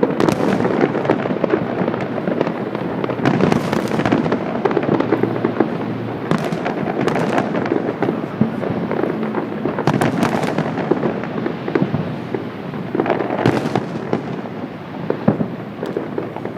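A fireworks display going off in a dense, continuous barrage of bangs and crackling, with louder bursts every few seconds.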